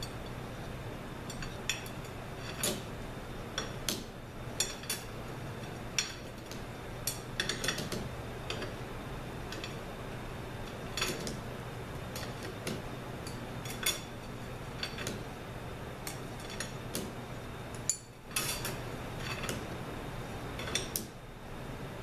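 Steel clutch plates and friction discs from a 5L40E transmission's low-reverse clutch pack clinking against each other and the metal clutch drum as they are stacked back in by hand: irregular light metallic clicks, one or two a second, over a steady low hum.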